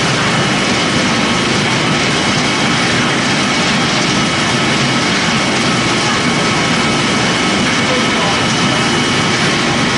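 Pellet-making production line running: a steady, loud machine noise with a few faint steady high whines on top.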